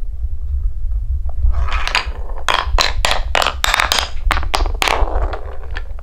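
Balls rolling through a wooden marble-run track of carved blocks, with a dense run of clacks and knocks against the wood and each other, starting about a second and a half in and easing off near the end. A steady low rumble lies under it.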